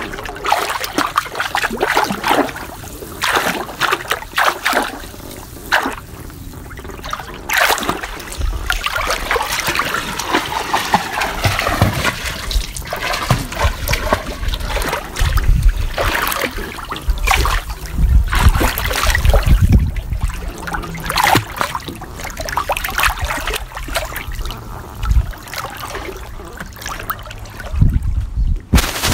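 A person splashing and dabbling in swimming pool water: irregular trickling and sloshing, broken now and then by heavier splashes.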